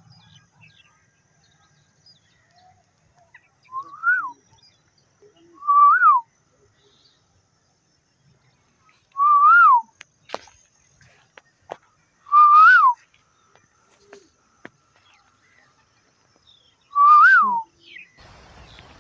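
A clear whistled phrase, a short note that rises and then drops, repeated five times at gaps of two to five seconds. A few faint taps fall between the phrases, and a steady hiss comes in near the end.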